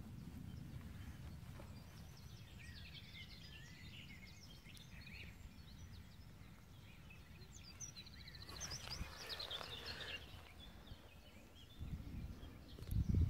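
Small songbirds singing and twittering in open grassland, in two spells, over a low rumble. A single thump near the end.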